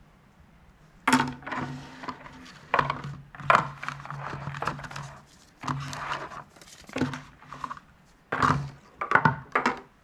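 Packaging handled during an unboxing: a series of knocks, taps and crinkling rustles. They start about a second in, come in irregular clusters and stop near the end.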